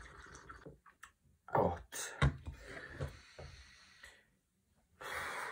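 A man breathing out and gasping over a mug of hot coffee, with breathy exhalations throughout and a louder one near the end. A single sharp knock comes a little over two seconds in.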